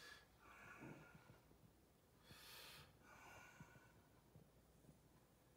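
Faint breathing close to the microphone: several soft breaths in and out, each lasting under a second, over a near-silent room.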